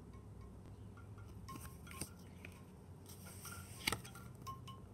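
Light handling sounds of tarot cards being turned over and laid down: faint taps and small clinks, with one sharp click about four seconds in.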